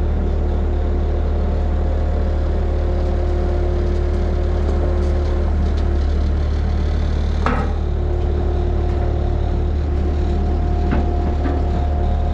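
A vehicle engine running steadily, with a sharp clack about halfway through and a lighter one near the end.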